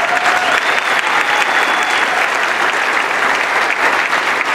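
Audience applauding: a steady, dense clapping from many hands.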